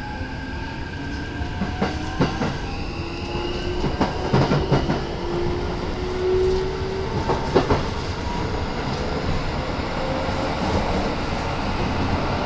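Running sound inside a Keikyu 1000 series commuter car: the traction motor whine rises slowly in pitch as the train gathers speed. The wheels clack over rail joints in a few short groups.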